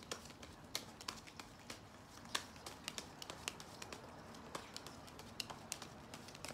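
A deck of tarot cards being shuffled by hand: faint, irregular clicks and flicks of card edges, several a second.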